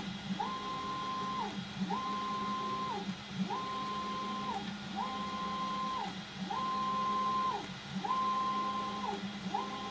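Stepper motors of an Ooznest WorkBee CNC router whining as the gantry is jogged seven times in a row, in 50 mm jog moves. Each move is a tone that rises, holds for about a second and drops away. A steady low hum runs underneath.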